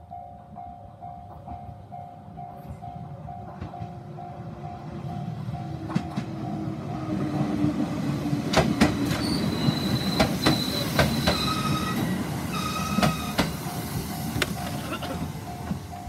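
Japanese level-crossing warning bell ringing in an even repeating beat while a JR Central 213 series electric train approaches and runs through the crossing. The train grows louder from about four seconds in, and its wheels click over the rail joints and squeal briefly in the middle of the pass.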